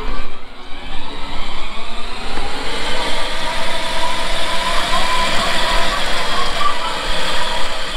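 A 12-volt four-wheel-drive kids' electric ride-on UTV, with a motor at each wheel, pulling away and driving over concrete on its foam-filled tyres: a steady motor-and-tyre noise that builds over the first two seconds or so and then holds.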